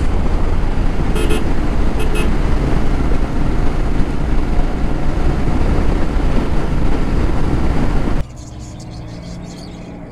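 Wind rush and the Royal Enfield Interceptor 650's parallel-twin engine running at steady highway cruising speed, its exhaust fitted with dB killers. Two short horn toots sound about a second and two seconds in. Near the end the sound cuts off suddenly to a much quieter background with faint birdsong.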